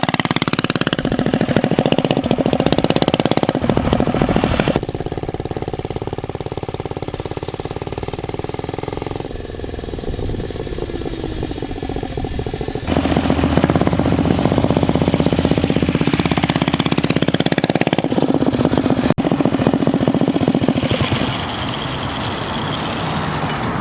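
Predator 212 single-cylinder engine on a mini bike running and revving as it is ridden, its pitch rising and falling, in several clips that cut abruptly from one to the next. The engine is jetted too rich, which the riders say makes it bog when the throttle is opened too far.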